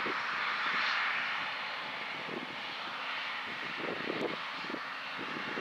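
Heavy farm harvest machinery running: a steady rushing drone, with a few short low rattles about four seconds in.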